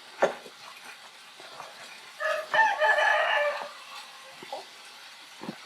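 A rooster crows once, starting about two seconds in and lasting about a second and a half. A few short sharp knocks come before and after it.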